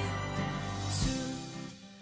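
Background pop song in an instrumental gap between sung lines: a held chord with bass that fades away in the second half.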